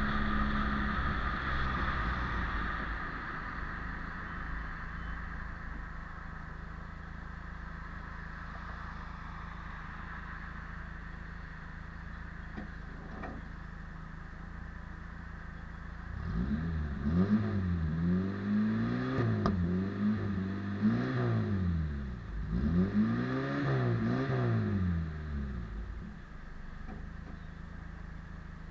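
Peugeot 205 Roland Garros's four-cylinder engine and exhaust idling steadily, then revved in a string of blips, about half a dozen quick rises and falls in pitch, louder than the idle, before dropping back to idle near the end.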